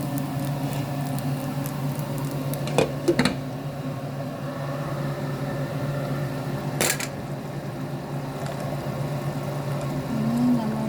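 Steady electric motor hum of a running kitchen appliance, with a few sharp knocks: two close together about three seconds in and one near the middle.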